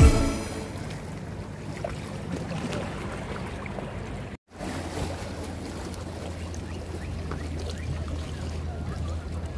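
Shallow seawater sloshing and lapping around people wading with a fishing net, with wind on the microphone. The sound cuts out briefly about four and a half seconds in, and after that a low steady rumble runs underneath.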